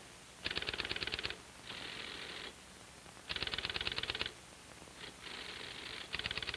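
Remington Electric typewriter filling in a form. Three bursts of rapid, evenly spaced clicks, about a second each, alternate with two stretches of steady whirring. This is its electric printing and repeat spacebar moving the carriage between fill-ins.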